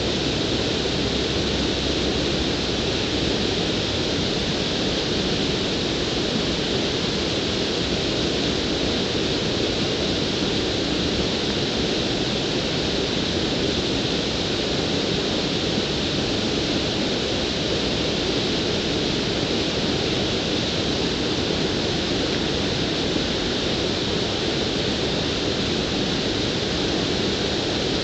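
Water pouring over a low concrete weir, a steady rushing noise that does not change.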